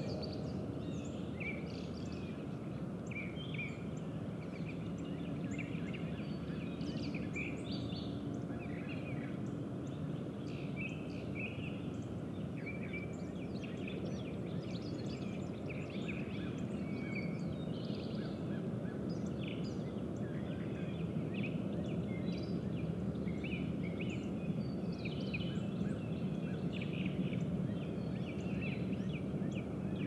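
Wild birds chirping and calling, many short scattered notes throughout, over a steady low outdoor background rumble.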